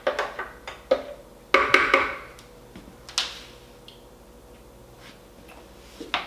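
Metal spoon clinking and scraping against a food processor's plastic bowl as sauce is scooped out: several sharp clicks and knocks in the first two seconds, one more sharp click about three seconds in, then quiet, with a single knock near the end.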